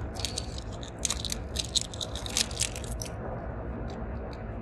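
Fingers working at a plastic toy-packaging fastener, a quick run of crinkles and clicks that thins out after about three seconds, over the steady low rumble of a moving car's cabin.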